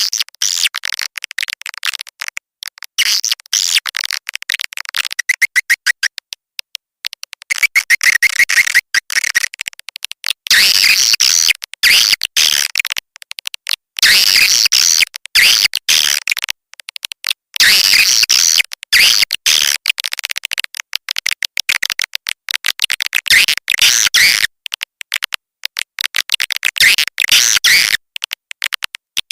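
A swiftlet lure call: rapid, dense chattering clicks and high twittering chirps, layered thickly and broken by short gaps. It is the kind of calling track swiftlet farmers play to draw swiftlets to a nesting house.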